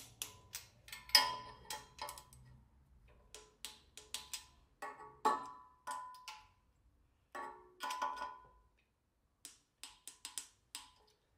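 Click-type torque wrench ratcheting and clicking as exhaust manifold nuts are tightened to 18 ft-lb, with sharp metallic clicks, some ringing briefly, at irregular intervals.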